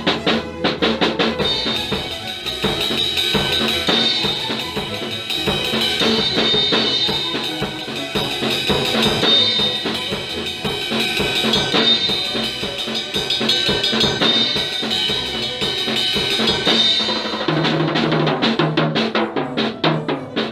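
Acoustic drum kit with Paiste cymbals played fast: dense drum strokes under a sustained cymbal wash. About three-quarters of the way through the cymbal wash drops away, leaving quick, separate drum hits with lower tom-like tones.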